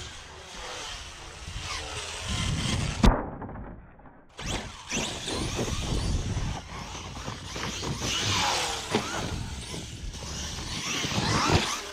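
Traxxas XRT 1/5-scale RC monster truck driving hard over rough grass and dirt. Its brushless motor whines under a loud rushing noise, with one sharp thump about three seconds in.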